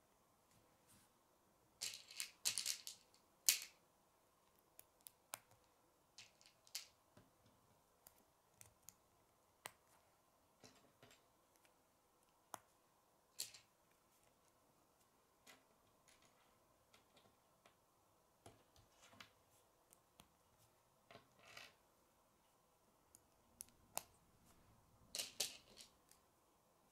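K'nex plastic pieces clicking and rattling as they are handled and snapped together. Light, irregular clicks throughout, with short bursts of rattling about two seconds in and again near the end.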